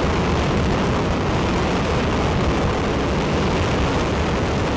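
Ares I first-stage five-segment solid rocket motor firing in a horizontal static test: a loud, steady, deep rushing noise that does not let up.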